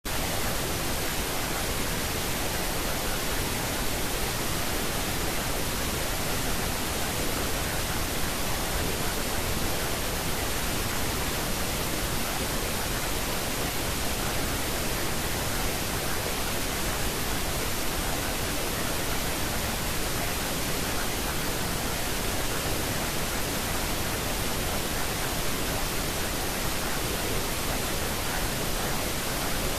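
Steady pink-type noise, an even, unchanging hiss spread across all pitches: the masking noise track of a subliminal affirmation recording.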